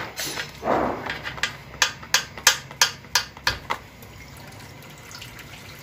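Automatic transmission oil filter being pried and pulled off the valve body: a short scrape, then a quick run of about eight sharp clicks, about three a second, before it goes quiet to a low hiss.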